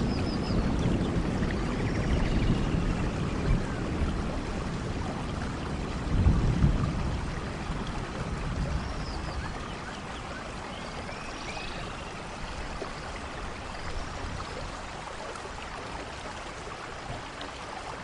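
Steady heavy rain in a rainforest thunderstorm, with low thunder rumbling at the start and again about six seconds in, then fading to rain alone. Faint high chirping calls sound through the rain.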